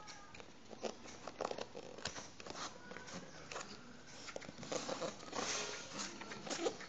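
Cardboard packaging being handled: scattered taps and scraping rustles as the box is turned, with a denser stretch of sliding and rubbing about five seconds in as the inner box is pushed out of its cardboard sleeve.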